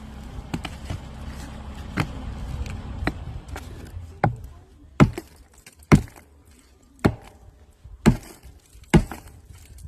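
Sharp strikes on a concrete chimney cap, about eight blows roughly a second apart, knocking loose an over-poured cap that is splitting away from the old cap beneath it.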